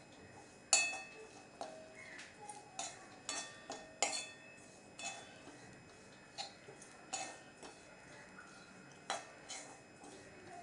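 Metal spoon scraping and clinking against a metal kadai while stirring coconut and seeds as they dry-roast without oil. The clinks are irregular and ring briefly; the loudest come about a second in and about four seconds in.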